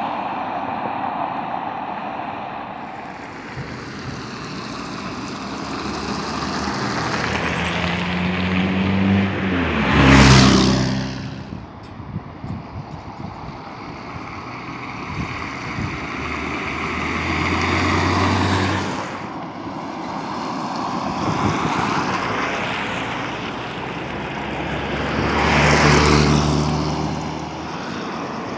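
Road traffic: cars passing one after another on the adjacent road, each swelling with tyre and engine noise and then fading. The loudest pass is about ten seconds in, with further passes near the middle and near the end.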